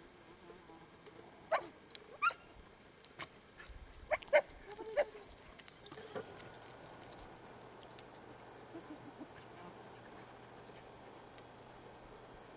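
Hunting dog barking in short, sharp yelps, about six of them in the first five seconds, then falling quiet.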